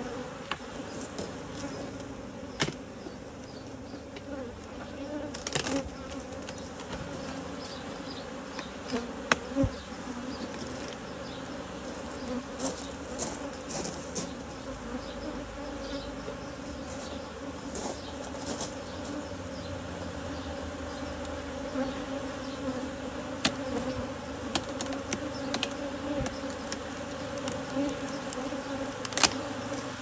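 Honeybees buzzing in a steady, dense hum around an opened hive, with a few sharp clicks and knocks scattered through.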